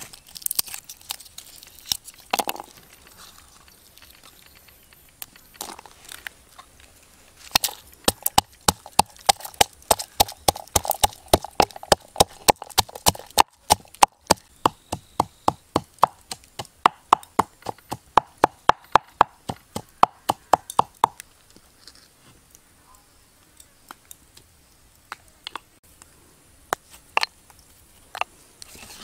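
Knife chopping on a wooden board: a few single chops, then a long steady run of quick chops, about three a second, then a few scattered chops near the end.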